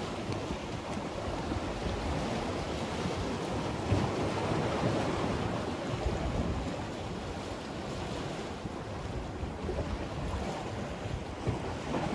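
Sea waves washing and splashing against the concrete blocks and rocks of a breakwater, with wind buffeting the microphone.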